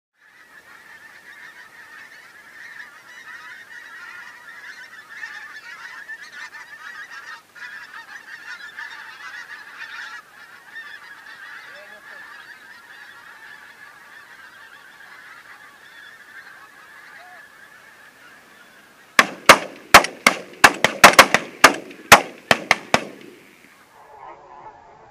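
A large flock of geese honking continuously overhead. About nineteen seconds in, a rapid volley of a dozen or more shotgun shots rings out over about four seconds, much louder than the flock.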